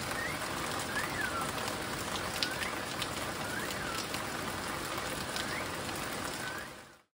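Steady rain falling on leaves and foliage, with short swooping chirps heard about six times over it. The sound fades out near the end.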